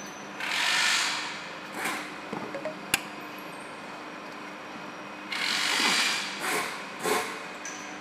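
Screwdriver turning the screws that hold the blade of a manual wire stripping machine, a blade change: two long metal scrapes about five seconds apart, each followed by shorter ones, and a sharp click about three seconds in. A faint steady hum runs underneath.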